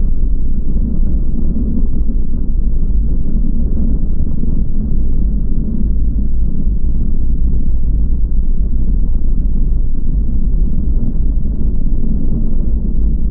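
Steady, heavy rumble of an unlimited hydroplane running at speed, heard from onboard: turbine engine, wind and hull on the water blended together, with no separate bangs or changes.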